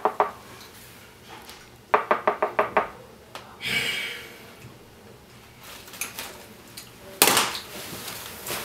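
Knuckles rapping on an apartment door: a couple of knocks right at the start, then a quick run of about eight knocks about two seconds in. A loud burst of rustling comes near the end.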